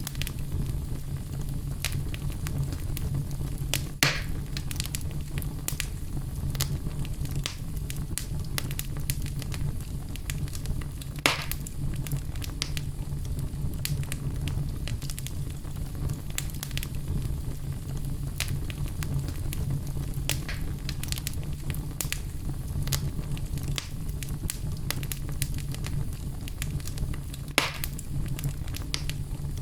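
Fireplace fire burning steadily: a low rumble under constant small crackles, with three louder pops spread through.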